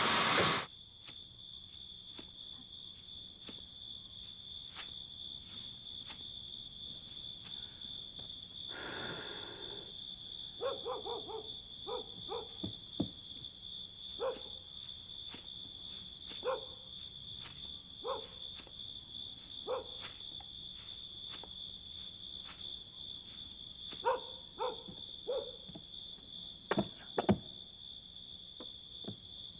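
Night ambience: an insect chirring steadily at a high pitch, with short dog barks coming in small groups from about ten seconds in. Two sharp knocks near the end.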